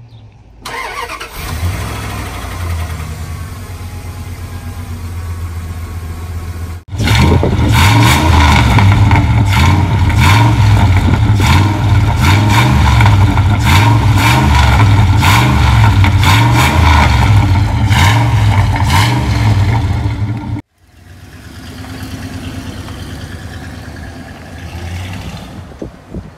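Pickup truck engine starting about a second in, on its first start after a fresh oil change and new spark plugs, then idling with a steady low hum. After a cut it runs much louder right at the tailpipe with an uneven pulsing, then quieter again as the truck pulls away near the end.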